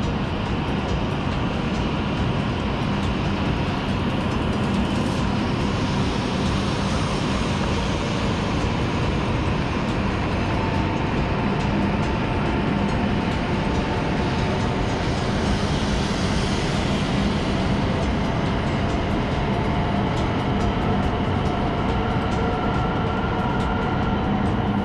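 Hokuriku Shinkansen train running, heard from inside the car by the door: a steady, loud rumble and rushing noise. About halfway through, a faint whine of steady tones comes in.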